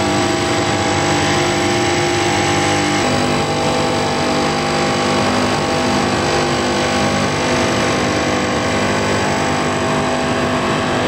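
A dense, steady electronic drone: many held tones over a noisy hiss, with the mix of tones shifting suddenly about three seconds in.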